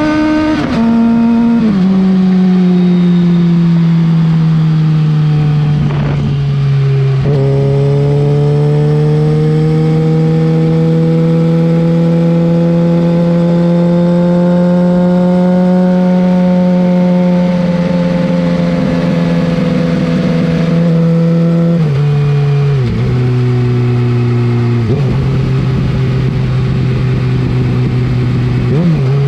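2007 Suzuki GSX-R 750's inline-four engine running through a Yoshimura R55 slip-on exhaust, heard close at the muffler. Its pitch drops sharply about a second in, climbs slowly through the middle, eases off, then drops in several steps near the end.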